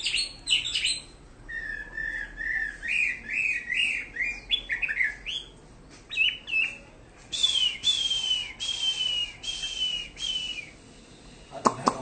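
Chinese hwamei (melodious laughingthrush) singing: varied phrases of quickly repeated whistled notes, then a run of about six falling, slurred whistles. A louder, lower-pitched sound with a few clicks cuts in near the end.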